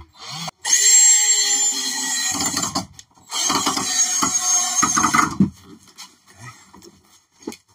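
A power drill driving screws into the wooden bed frame, in two runs of about two seconds each, with a short pause between them. Light knocks of wood follow.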